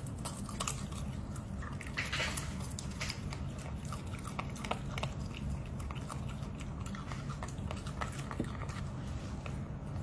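A dog chewing vegetables: irregular crunching and smacking clicks over a steady low hum.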